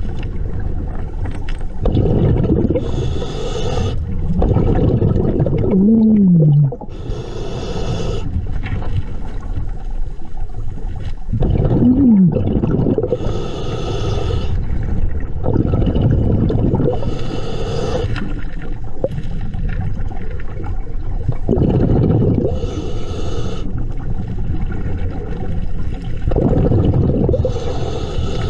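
Scuba diver breathing through a regulator underwater: a hiss about every five seconds, heard six times, over a continuous low bubbling rumble. Two short falling tones sound about six and twelve seconds in.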